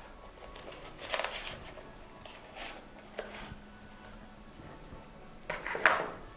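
Cardboard phone box and its packaging being handled and rummaged through, in several short rustling, scraping bursts, the loudest near the end.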